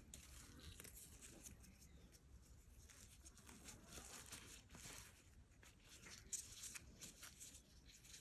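Faint tearing and rustling of fresh taro leaves and stalks as hands strip them apart, with small crackles and a slightly louder crackle a little past six seconds in.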